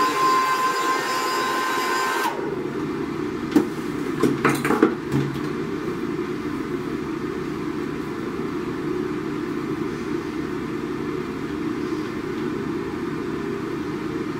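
Handheld hair dryer blowing steadily. About two seconds in, its high whine drops away and it carries on lower and a little quieter. A few sharp clicks come about four to five seconds in.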